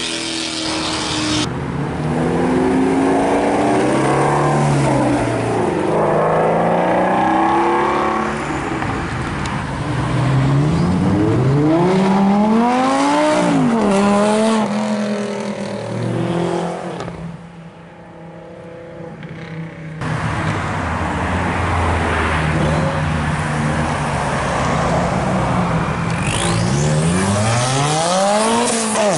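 A string of sports cars accelerating hard, one after another, in separate clips joined by sudden cuts. Engines rev up repeatedly and drop at each shift. Among them is a Lamborghini Gallardo's V10 around the middle, and near the end a Subaru WRX STI's turbocharged flat-four revving as it pulls away.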